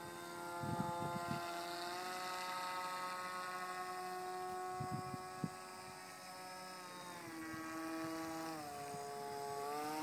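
Motor and propeller of a layered-foam RC model aircraft buzzing in flight. The pitch steps up about two seconds in, sags for a while near the end, then climbs again as the throttle changes. A few short low thumps come about a second in and around the middle.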